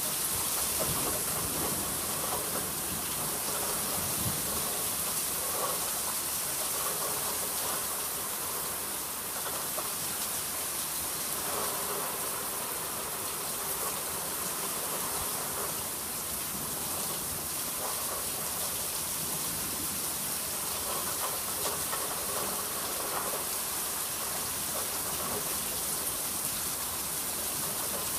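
Rain falling steadily in a thunderstorm: an even, unbroken hiss with no strong claps of thunder.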